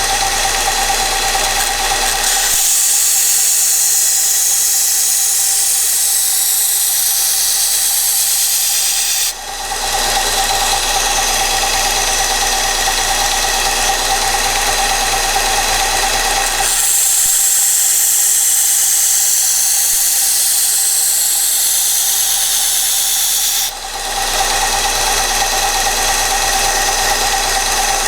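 Kalamazoo 1SM belt sander running with a 120-grit belt while a steel kitchen knife's edge is ground against it. There are two long grinding passes of about seven seconds each, one starting a few seconds in and one in the second half, each a loud hiss over the steady motor whine. Between the passes the sander runs unloaded.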